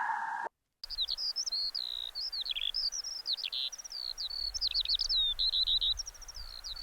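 A songbird sings a continuous, fast, varied twittering song of short sliding notes. It starts about a second in, after a sudden cut.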